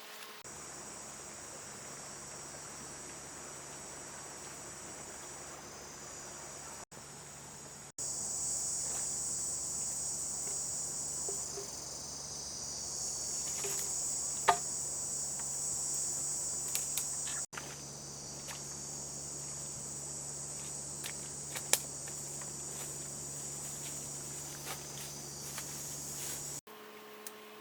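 Dense chorus of forest insects chirring in a steady high-pitched band, which changes abruptly a few times. A couple of sharp clicks stand out partway through.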